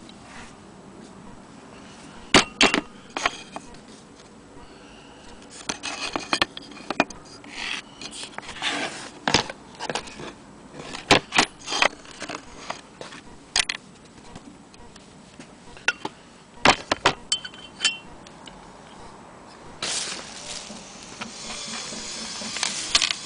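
Scattered sharp knocks and clinks of hard metal and wood as an antique Willcox & Gibbs hand-crank sewing machine and its wooden base are handled, coming irregularly rather than in a steady rhythm. A steady rubbing noise sets in near the end.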